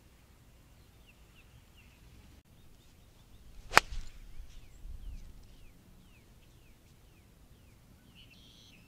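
Pitching wedge striking a golf ball once, a single sharp click about four seconds in; the shot is bladed, caught thin on the club's leading edge.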